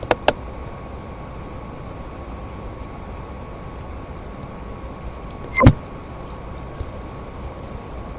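Steady hum and hiss with a faint high steady tone, broken by two quick clicks right at the start and one louder knock about five and a half seconds in.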